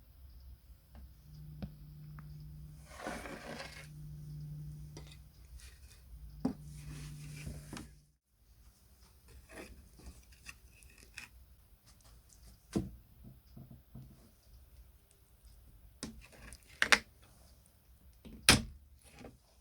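Hands working with tools and parts on a workbench: scattered clicks, taps and knocks, with two sharp knocks near the end. For the first part a low steady hum comes and goes, then stops abruptly.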